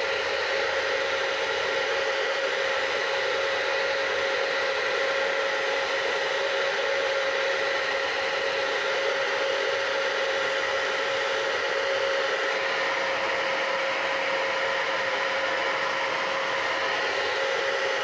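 UNIKARA ionic hair dryer running steadily with its Ocean Wave diffuser fitted: an even rush of air with a constant motor whine.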